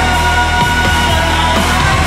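Loud music with a driving drum beat and held high notes.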